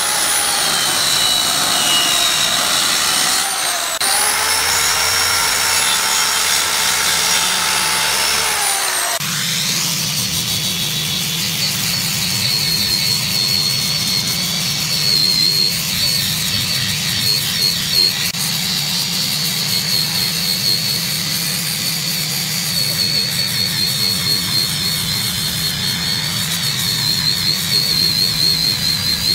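Handheld circular saw running and cutting through a wooden tabletop, its whine sagging under load and recovering, stopping about nine seconds in. Then an angle grinder with a sanding disc runs steadily, sanding the tabletop's surface with a high whine over a low hum.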